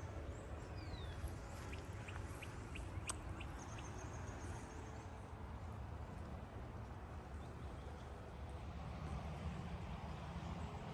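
Outdoor ambience: a steady low rumble with a few faint bird chirps, including a short falling whistle about a second in.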